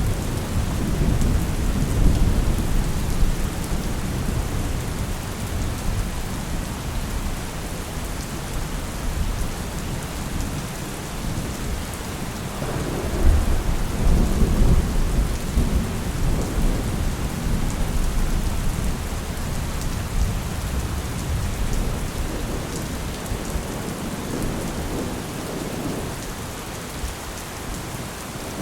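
Steady heavy rain with rolling thunder. Low rumbles swell near the start and again about halfway through, then ease off.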